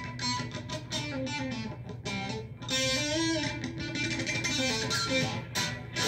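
Electric guitar played solo: a run of quick picked single notes, then held notes bent up and down in pitch around the middle.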